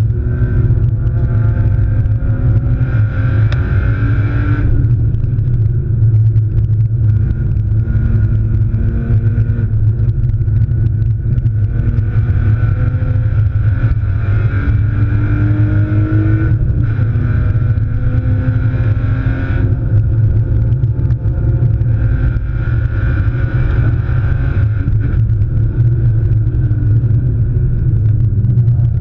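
BMW E36 328i's 2.8-litre straight-six engine heard from inside the cabin at race pace. It climbs through the revs and drops back at gear changes and lifts several times, over a heavy low drone.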